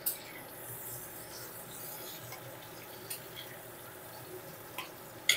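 Metal spatula scraping and clinking in a metal kadai as pieces of fried pointed gourd are scooped out. There is a sharp clink just after the start, a few light knocks, and the loudest clink near the end.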